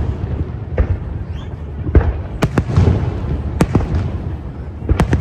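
Fireworks display: shells bursting in a string of about seven sharp bangs at uneven intervals, over a continuous low rumble.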